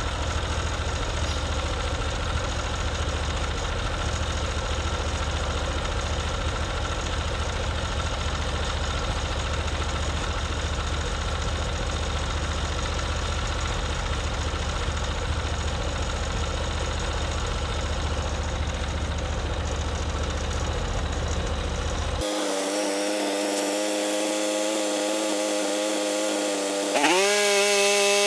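Portable bandsaw sawmill's gasoline engine running steadily. About three-quarters of the way through, the sound changes abruptly to a cleaner, steadier hum. Near the end the engine speeds up, its pitch rising and the level getting louder.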